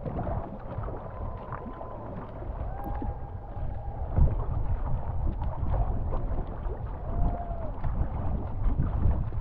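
Wooden tandem canoe under way, with paddle strokes dipping and pulling through choppy water and water rushing along the hull. Wind rumbles on the microphone throughout.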